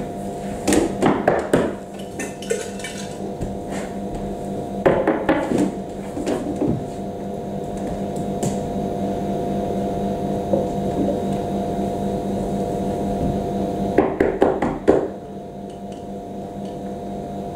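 Knocks and thuds of a dancer's body, hands and feet against a wooden tabletop, coming in three short clusters: about a second in, around five seconds in, and near the end. A steady hum runs underneath.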